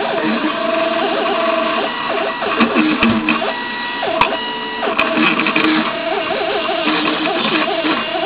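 Teneth cutting plotter's stepper motors whining in short stop-start runs that change pitch as the tool carriage and the sheet move, with a few sharp clicks.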